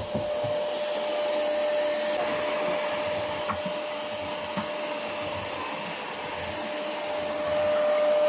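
An electric appliance motor running steadily: a rushing noise with a single steady whine, a little louder near the end.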